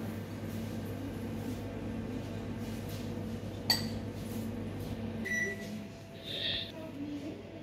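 Shop ambience: a steady low mechanical hum, with a sharp click about halfway through and two short high beeps near the end.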